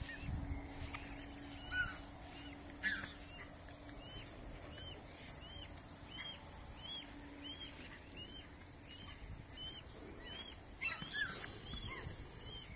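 Mute swan cygnets peeping: a steady series of short, high, arched peeps, about two a second. A few louder, longer descending calls come about two and three seconds in and again near the end.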